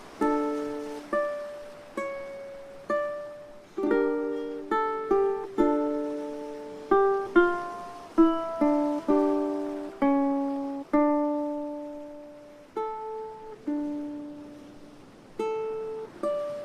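Slow instrumental ukulele music: single plucked notes and two-note chords, each ringing out and fading before the next.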